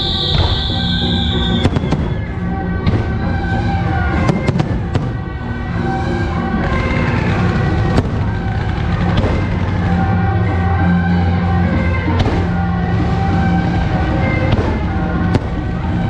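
Firecrackers and fireworks going off in irregular cracks and bangs over loud music with sustained tones and bass. A bright high hiss stops just under two seconds in.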